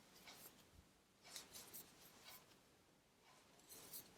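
Near silence with a few faint, brief rustles of a crochet hook drawing cotton yarn through single crochet stitches.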